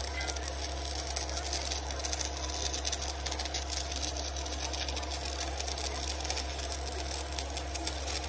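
Electric arc welding on a steel excavator bucket: the arc crackles and sizzles steadily without a break, over a steady low hum.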